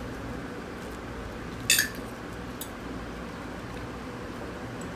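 Metal cutlery clinking sharply against a glass plate once, a little under two seconds in, with a fainter clink shortly after, over steady low room noise.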